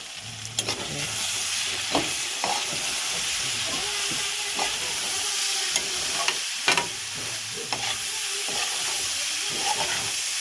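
Food frying in hot oil in a pan, with a steady sizzle, while it is stirred with a spoon that knocks and scrapes against the pan now and then.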